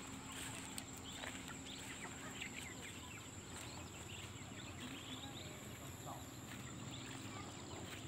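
Chickens clucking and calling, with many short chirps scattered throughout, over a continuous thin high-pitched tone.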